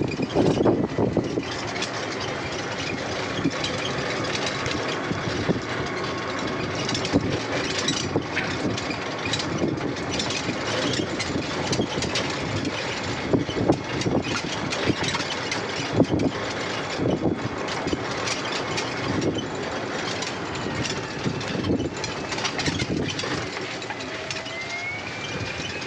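Open-sided electric shuttle cart driving along a paved path: a steady rush of wind and road noise, with scattered knocks and rattles from the cart body. A thin whine rises in pitch near the end.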